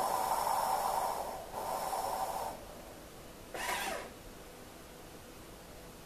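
Melitta CI Touch coffee machine's milk frothing system hissing and spluttering in three spurts: two longer ones back to back, then a short one about halfway through that falls in pitch.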